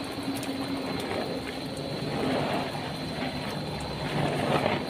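Heavy rain falling steadily on a plastic tarp shelter, a continuous hiss, with a faint low hum underneath.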